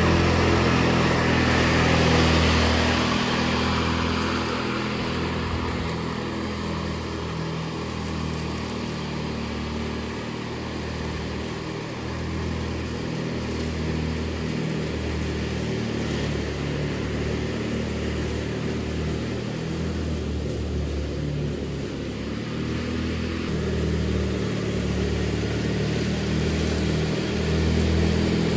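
Riding lawn mower engine running steadily, its note wavering slightly throughout.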